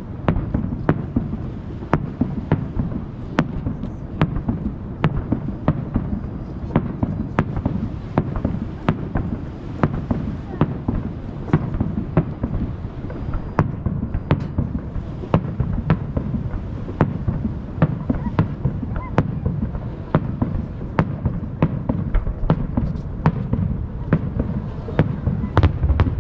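Aerial fireworks bursting in quick succession, sharp bangs about twice a second over a continuous low rumble of booms echoing off the surrounding hills.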